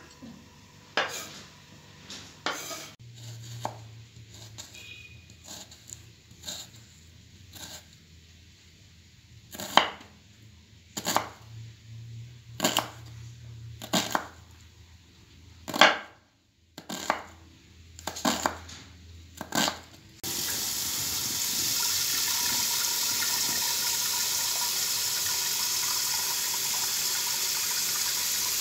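Kitchen knife chopping onion on a wooden cutting board, sharp irregular knocks. About two-thirds of the way in this gives way to a kitchen tap running steadily into a metal pot of cut potatoes.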